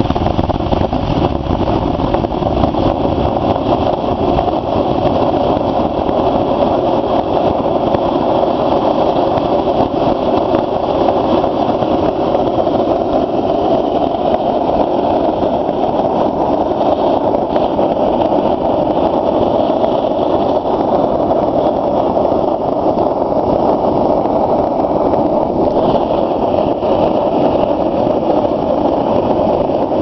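Burner of a small homemade melting furnace firing steadily: a constant, even rushing flame noise, with no breaks or changes, as the crucible inside is heated.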